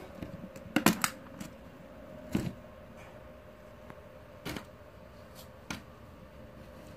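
Metal springform cake pan being unclasped and its ring lifted off the cake: a handful of sharp metallic clicks and knocks, the loudest about a second in, over a faint steady hum.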